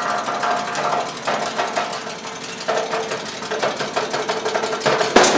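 Orimas BC-02 vegetable cutting machine running and slicing carrots, with a rapid, even chopping clatter over a steady motor hum. A sharp knock comes near the end.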